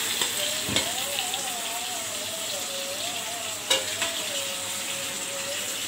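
Chicken pieces frying in hot oil with garlic-ginger paste in an aluminium karahi, a steady sizzling hiss. A single sharp click comes about three and a half seconds in.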